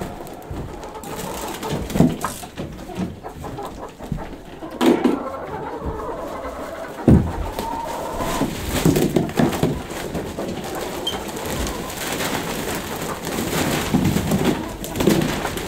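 Hens in a coop making low, cooing murmurs and croons, with three dull knocks that stand out above them.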